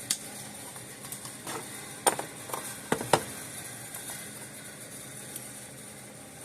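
A handful of light clicks and knocks at irregular spacing, most of them bunched together around two to three seconds in: a fence voltage meter and its leads being handled and set up.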